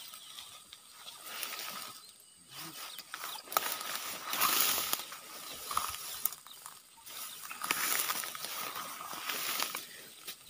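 Dense grass, weeds and fern fronds rustling and crackling as they are pushed aside and handled close by, in irregular bursts with a few sharp snaps.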